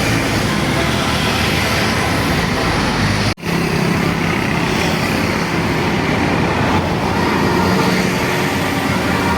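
Road traffic with a bus going by, engine and tyre noise running steadily, with a brief dropout a little over three seconds in.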